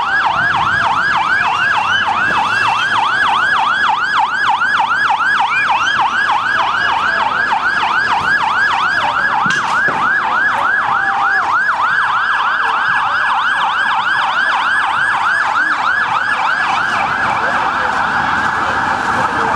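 Police vehicle siren on a fast yelp, sweeping up and down about three times a second, settling into a steadier tone near the end.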